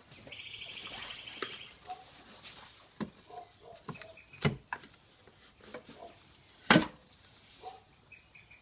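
Scattered knocks, clicks and clunks as the intercooler is worked loose and lifted off the engine, the two loudest knocks about four and a half and nearly seven seconds in. Small birds chirp a few times in the background, with a rapid trill near the start.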